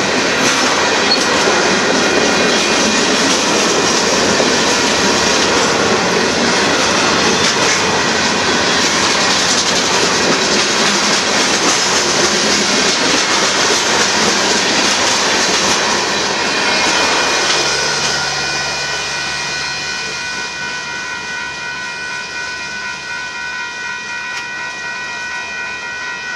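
Union Pacific mixed freight train's cars rolling past over the crossing: a dense steady rumble with clickety-clack of wheels over rail joints. About two-thirds of the way through the rolling noise fades as the last cars go by, leaving several steady high ringing tones.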